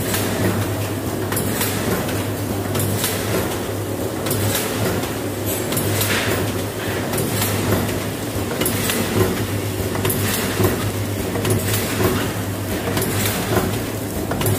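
Collar-type fully pneumatic pouch packing machine with a volumetric cup filler running, filling and sealing pouches in a regular cycle: a short burst of air and a knock about every one and a half seconds, over a steady low hum.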